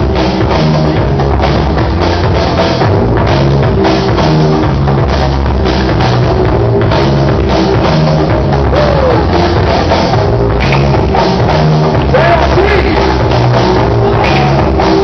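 Loud breakdance battle music with a steady drum-kit beat and heavy bass.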